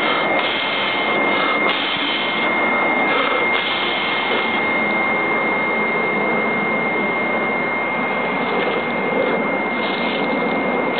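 BioLite wood-burning camp stove with its built-in fan running on high, a steady rush of blown air through the burning wood, with a thin high whine.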